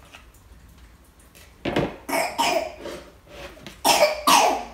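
A person coughing: three quick coughs a little under two seconds in, then two louder coughs near the end.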